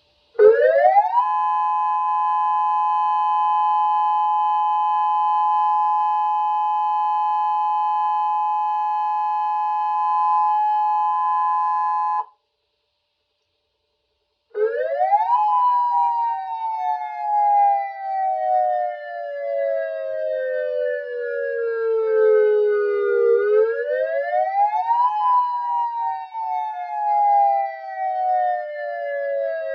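Homemade dual-tone electronic siren. Two tones a little apart in pitch sweep up quickly and hold steady as the alert signal for about eleven seconds, then cut off. After a short gap the siren starts again as a slow wail, the attack signal: a quick rise, a long fall in pitch over several seconds, then another rise and fall.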